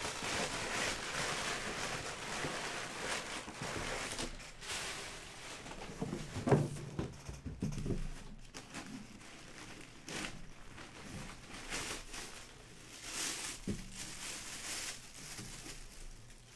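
Crumpled kraft packing paper rustling as hands dig through a cardboard box, then a cloth bag and a plastic bag crinkling as a football helmet is lifted out and handled. A single thump about six and a half seconds in.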